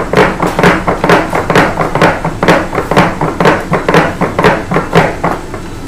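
Background music with a steady beat, about two beats a second over a steady low tone, fading out near the end.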